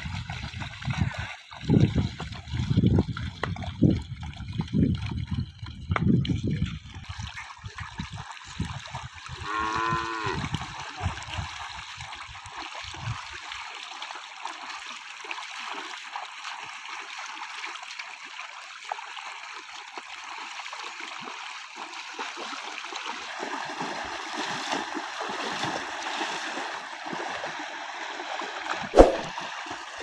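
Cattle wading through a shallow river: water splashing around their legs over a steady rush of flowing water. Low rumbling bursts fill the first seven seconds, a short moo comes about ten seconds in, and there is a sharp click near the end.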